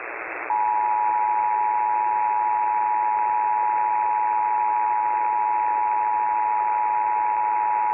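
Emergency Alert System two-tone attention signal: two steady tones sounded together, starting about half a second in and holding without change, over a constant radio hiss.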